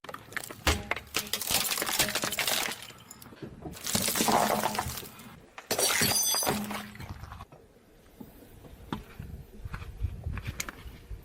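Glass crushed under a car tyre, crunching and shattering in three loud bursts of cracking and tinkling, then a few scattered small crackles as the pieces settle.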